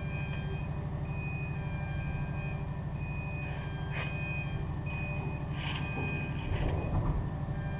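Car ferry's engines running with a steady low throb, while an electronic warning beeper sounds in short beeps about once a second. A louder rumble swells near the end.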